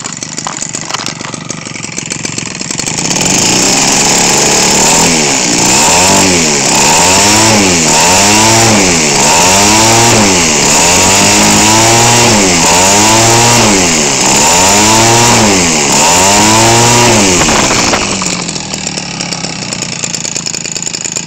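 Echo 25cc two-stroke engine, converted for a model airplane and swinging an 18x6 propeller, idling at first and then revved up and down over and over, about eight times. It then drops back to idle a few seconds before the end.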